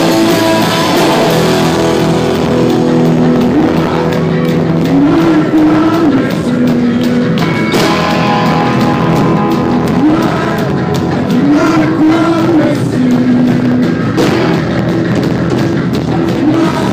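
Rock band playing live: electric guitar under a sung melody, loud and steady throughout.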